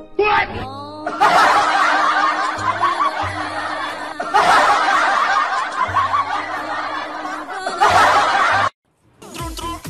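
Laughter sound effect, snickering and chuckling voices in three bursts over background music, cutting off abruptly near the end.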